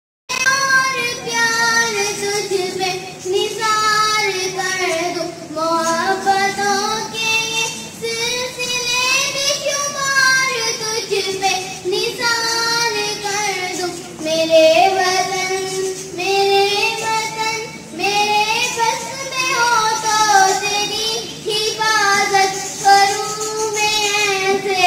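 A young girl singing solo into a handheld microphone: a sustained melody of long, wavering held notes. The singing starts abruptly just after the beginning.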